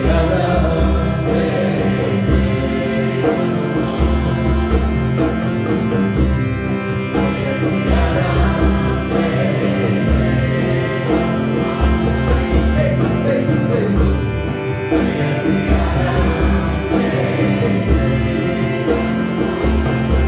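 Live kirtan: a group singing a Hanuman devotional mantra together, accompanied by acoustic guitars over a steady pulse.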